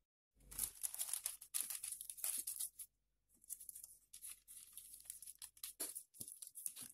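Non-stick baking paper crinkling and rustling as hands press it into a round aluminium cake pan, in two spells with a short pause about three seconds in.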